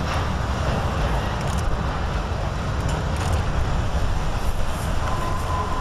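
Long freight-type train rolling away, a steady low rumble with light high clicks scattered through it. Near the end a short, faint steady tone sounds.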